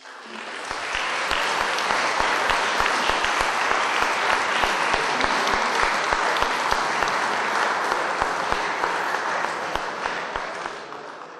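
Audience applauding: a large seated crowd clapping steadily, building up over the first second and fading away near the end.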